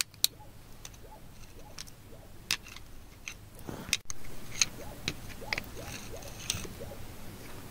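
A digging tool tapping and scraping against a smooth stone and wet gravel: scattered sharp clicks, about a dozen, with faint gritty scratching between them.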